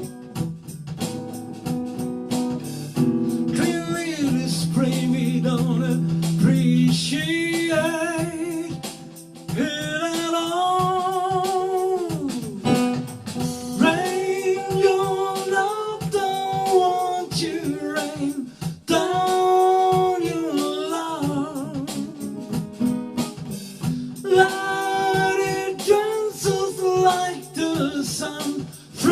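Soul song: a singer's voice gliding and bending over a guitar accompaniment.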